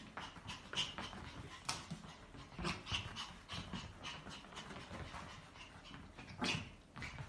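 A dog making short, irregular breathy sounds several times over, fairly quiet.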